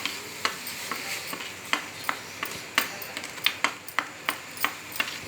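A spoon stirring a boiling spice-and-water decoction in a pan. It clinks against the pan about three times a second over a steady hiss.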